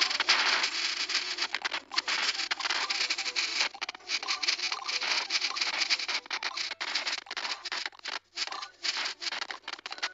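Video game sound effects: a dense, rapid crackle of many overlapping hit and pop sounds as towers attack a massive wave of enemies, with a couple of brief breaks in the second half.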